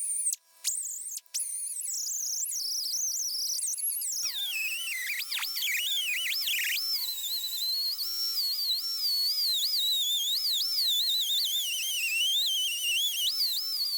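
Background music: electronic, with a high, warbling synth melody that glides up and down in pitch, briefly cutting out twice near the start.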